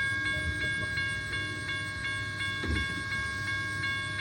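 Railroad grade-crossing bell ringing with an even, steady ring of about three strokes a second, the crossing signal active during installation and testing.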